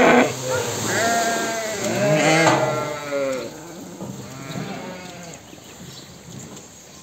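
A flock of sheep bleating: several long, wavering bleats overlap, loud in the first half and fainter toward the end.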